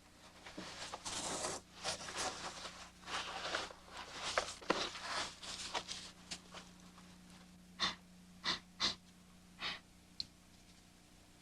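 A person breathing noisily through the nose and mouth in a run of breaths. In the second half come four short sharp breaths, then a single click.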